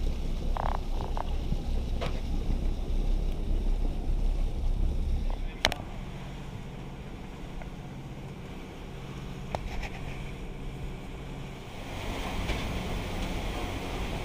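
Dive boat sounds: a loud low rumble with wind buffeting the microphone for about the first five seconds, then, after a sharp click, the steady hum of the boat's engine. A louder hiss comes in about two seconds before the end.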